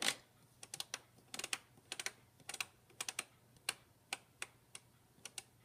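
Selector dial of a Thermomix TM5 being turned to set the timer, clicking step by step: a run of short, sharp clicks at uneven spacing, a few each second.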